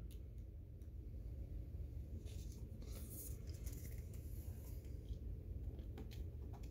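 Faint rustling and a few light taps of trading cards being handled and set down, over a low steady hum.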